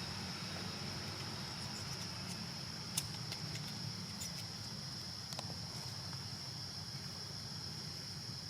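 Steady high-pitched whine over a low background rumble, with a few light clicks about three, four and five and a half seconds in.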